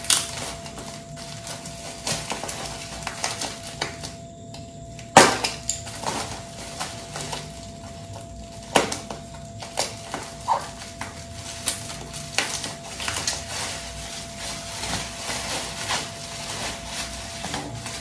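Plastic packing and bubble wrap being pulled and torn open by hand: crinkling and rustling with scattered small clicks, and one sharp louder snap about five seconds in.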